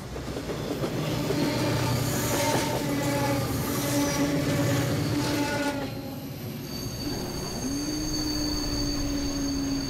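Train running through a station: the rushing noise of the rail cars, loudest for the first six seconds, with steady whining tones over it, then a tone that rises and holds from about eight seconds in.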